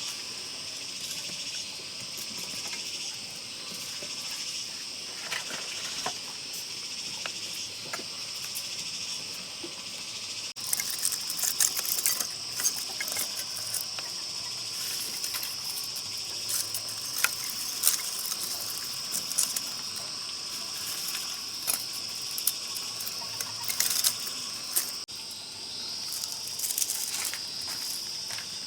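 Insects chorusing in a steady high-pitched drone. From about a third of the way in, scattered clicks and knocks sound over it.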